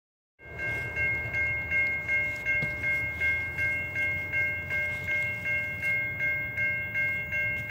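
Railroad grade-crossing bell ringing at an even pace of about three strikes a second, starting about half a second in, over a low rumble: the crossing warning for an approaching train.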